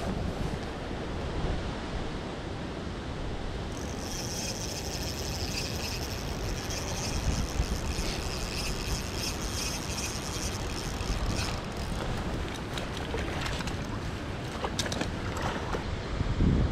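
Steady rushing noise of wind and water in the rain. A high, steady whir sounds for several seconds in the middle, and there are a few light clicks near the end.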